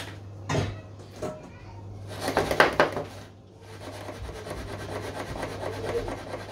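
Aluminium tube cake pan full of batter knocked and jiggled on a wooden tabletop to settle the batter. A couple of single knocks, a quick flurry of knocks about two seconds in, then a steady scraping rattle as the pan is shaken against the table.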